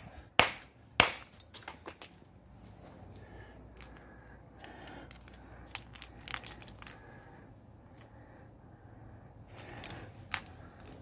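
Two sharp blows of a small ball-peen hammer on a quartzite boulder, about half a second apart in the first second, each followed by small clinks of rock chips. Then quiet clicks and rustling as the broken rock pieces are handled on the grass, with one sharper clink near the end.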